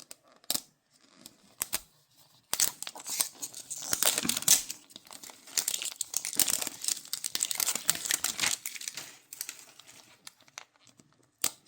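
Crinkly plastic wrap being torn off and crumpled from a Mini Brands capsule ball: a few light clicks, then dense crackling for about six seconds that thins out toward the end.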